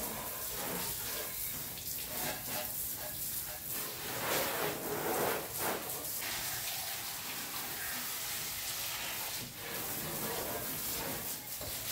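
Water running from a hose and splashing onto a motorcycle being washed, a steady rushing that swells for a couple of seconds around the middle.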